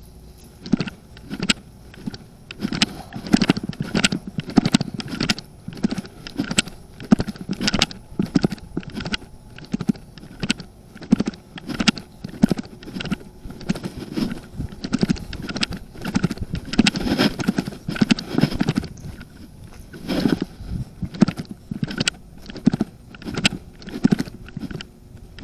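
Footsteps of a person walking at a steady pace, a sharp step sound several times a second.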